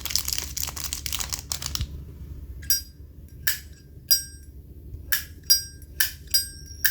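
Zippo lighter's metal lid snapped open and shut about eight times, each a sharp metallic clink with a brief ringing tone, not very loud but ringing. Before the clinks comes about two seconds of crinkly rustling.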